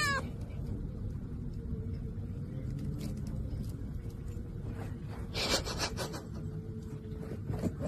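Steady low background rumble with a faint hum, broken by a brief crinkle of a thin plastic glove about five seconds in and a few soft crackles near the end.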